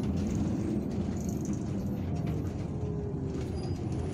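Irisbus Citelis 12M city bus driving, heard from inside the passenger cabin: a steady low rumble of engine and road noise, with a faint falling whine in the second half.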